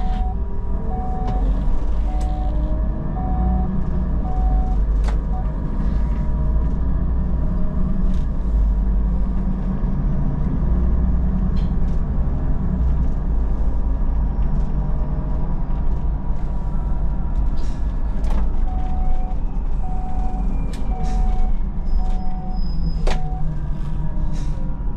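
Solaris Urbino 12 city bus heard from on board, its engine and drivetrain running with a steady low drone. An electronic beep repeats nearly twice a second for about five seconds at the start, and again near the end. A few sharp clicks are heard along the way.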